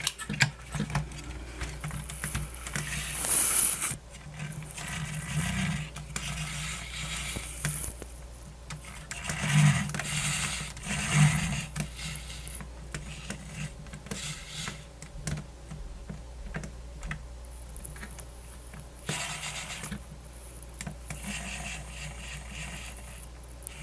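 Intermittent scraping, rubbing and small clicks of hands and tools working on the plastic parts of a small portable radio being taken apart.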